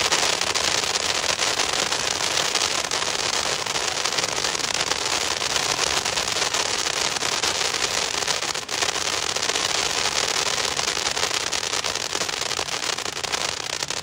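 A World Class consumer firework cake firing a dense, continuous crackle of small bursts. It cuts off right at the end as the cake burns out.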